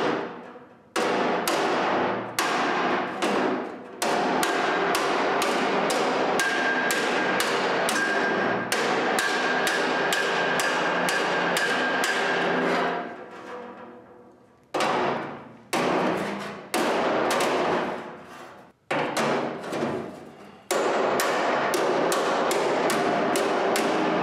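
Body hammer striking the bent sheet-steel rear fender panel of a 1943 Willys MB against a hand-held steel dolly, straightening the dented panel. The blows are rapid and ringing, about four a second, with two short pauses partway through.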